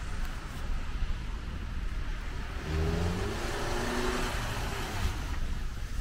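A motor vehicle passing on a wet road: tyre hiss on the wet surface swells, peaks about four seconds in and fades, while its engine note rises slightly as it accelerates past. A low rumble of traffic runs underneath.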